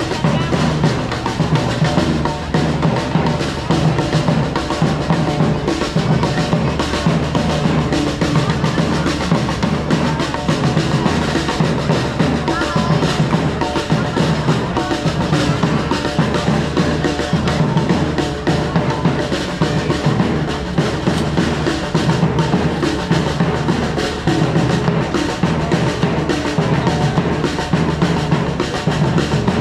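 Music driven by continuous drumming, with bass drum and snare-like hits throughout.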